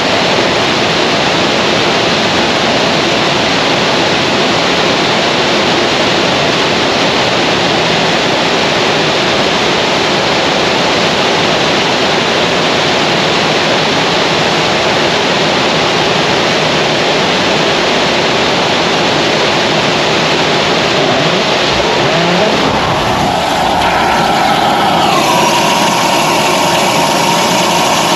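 Liquid-methane rocket engine firing on a test stand, a steady dense rushing noise. About 23 seconds in it changes as the engine shuts down, leaving a venting hiss with a few steady whistling tones while vapour purges from the nozzle.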